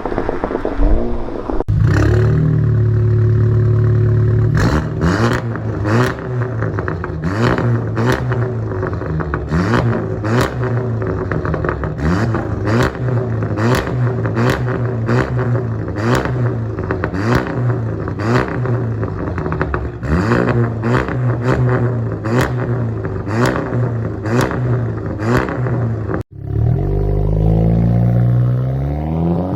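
Seat Leon Cupra ST's turbocharged 2.0-litre four-cylinder engine running through an aftermarket exhaust: a steady low drone broken by many sharp cracks. Near the end, after a brief cut, the revs climb.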